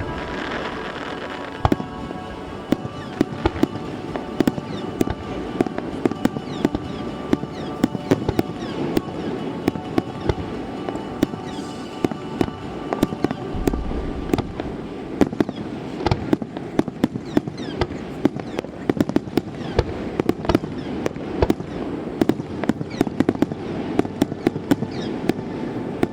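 Fireworks display: dense rapid crackling and sharp pops from bursting shells, with a deeper boom about halfway through. Music plays faintly underneath.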